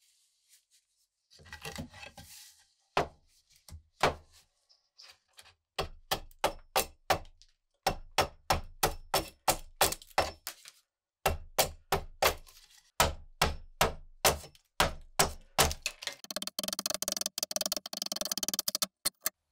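Van Camp hewing hatchet chopping down the edge of a wooden board: sharp chops in quick runs of about three a second, with chips splitting off. Near the end the blade shaves thin curls off the wood in a dense, fast crackle.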